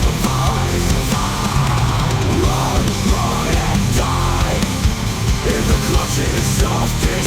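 Heavy metal music with distorted guitars and a driving drum kit, without vocals.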